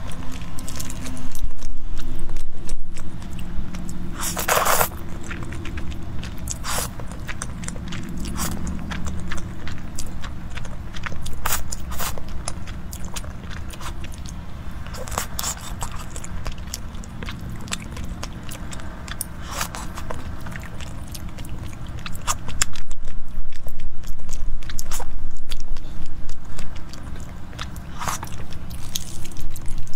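Close-miked wet chewing and mouth sounds of a person eating noodles in a thick sauce, with many scattered smacks and clicks.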